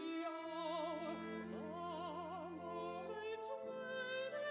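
Operatic singing with orchestral accompaniment: long held notes with wide vibrato over a sustained low line.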